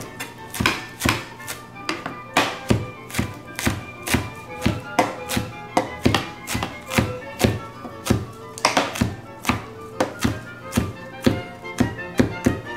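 Chef's knife chopping fresh basil on a plastic cutting board: a steady run of sharp taps, about two to three a second, with music playing underneath.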